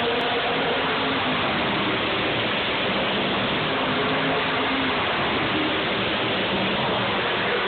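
Race car engines on a street circuit: a loud, steady wash of engine noise, with engine notes shifting in pitch as the cars go by.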